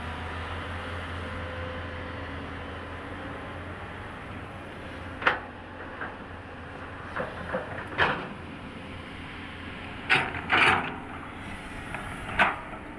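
Hydraulic excavator working: a steady low engine hum, with a handful of sharp knocks from the bucket and linkage starting about five seconds in, two close together past the middle.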